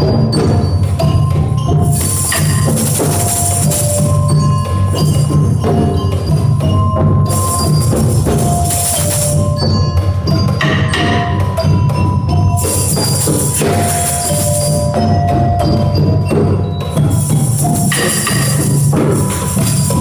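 A group playing hand drums together, djembes and congas keeping a dense, steady beat, with ringing tuned-percussion notes on top and a bright shaker-like hiss that swells up every few seconds.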